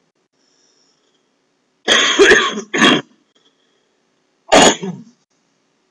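A person coughing: a loud double cough about two seconds in, then one more short cough about four and a half seconds in.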